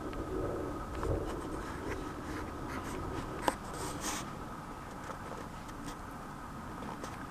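Scratchy rubbing and small clicks from a handheld camera being moved about, with one sharp click about three and a half seconds in, over a steady background hiss.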